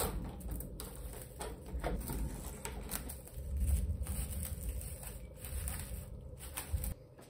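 Plastic cling film crinkling and rustling as it is pulled off the roll and pressed around a ball of pastry dough, with a steady low rumble underneath that stops near the end.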